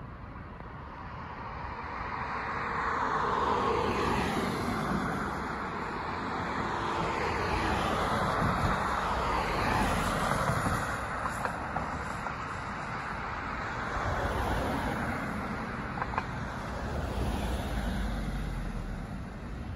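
Road traffic: several cars driving past close by, one after another, their tyre and engine noise swelling and fading with each pass.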